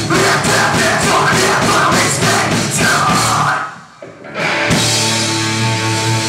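Live heavy metal band playing loud, with a steady drum beat, distorted guitars and screamed vocals. The band cuts off suddenly about three and a half seconds in, and after a short gap a sustained guitar chord rings out steadily.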